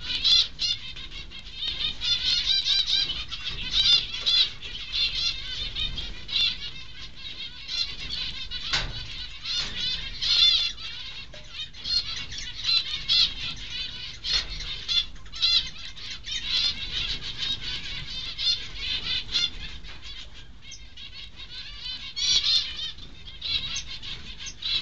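Zebra finches chittering in quick runs of high-pitched calls, easing off for a few seconds about three-quarters of the way through, with a few soft knocks.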